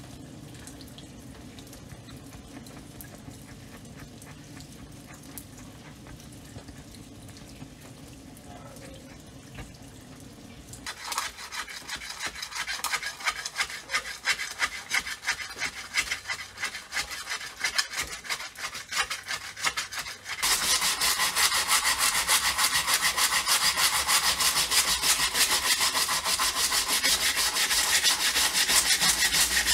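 Low steady hum for about eleven seconds, then rapid abrasive scraping strokes start, uneven at first and turning into continuous, louder scraping about twenty seconds in: abrasive work on a part of an old railway lamp being restored.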